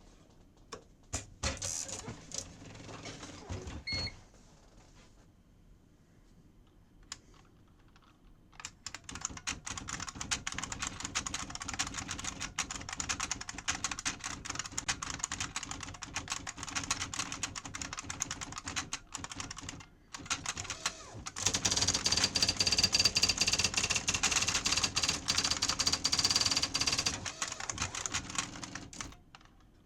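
Typing on an IBM Wheelwriter 30 Series 2 electronic daisy wheel typewriter with its clicky keyboard: a few scattered keystrokes, a quiet gap, then fast continuous clicking from about nine seconds in, louder for several seconds in the second half, tapering off near the end.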